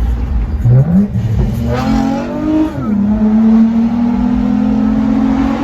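2018 Toyota Camry's 3.5 V6 with an aftermarket AEM cold air intake accelerating hard at wide-open throttle from a 25 mph roll, heard from inside the cabin. The engine note climbs steadily, drops once just before the 3-second mark as the automatic upshifts, then climbs again.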